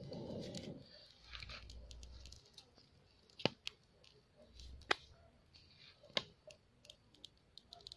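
Small wood fire crackling in an open brick stove, fed with sticks and dry straw: four sharp pops between about three and a half and six seconds in, among fainter scattered ticks.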